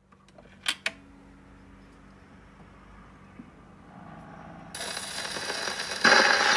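Victrola 1-90 gramophone playing a 78 rpm shellac record with a steel needle. Two sharp mechanical clicks come about a second in, then a faint steady hum while the record spins. About five seconds in the needle enters the groove and loud surface hiss starts suddenly, and the record's music begins near the end.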